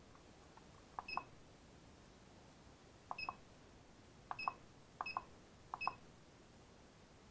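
Turnigy Reaktor hobby battery charger's menu buttons pressed five times, each press a click with a short high beep from the charger, stepping through its program-select menu.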